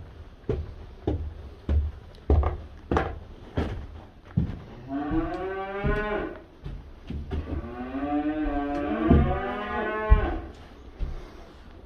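Black Angus cattle mooing: two long moos, the second longer, starting about five and eight seconds in. Before them, footsteps knock on a wooden floor at a steady walking pace.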